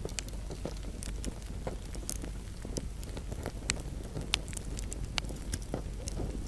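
Wood fire crackling in a fireplace: irregular sharp pops and snaps, a few louder ones about four seconds in, over a steady low rumble of burning.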